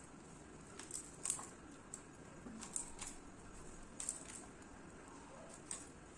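Knife cutting and trimming pieces of raw jackfruit: faint, irregular crisp clicks and slicing sounds, about ten of them, the sharpest a little over a second in.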